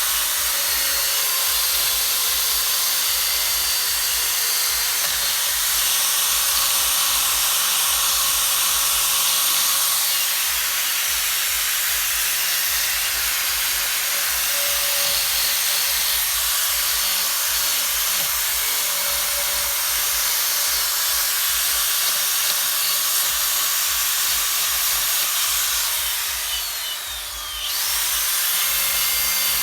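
Handheld electric rotary carving tool sanding a carved wooden bird: a steady grinding hiss that eases off briefly near the end.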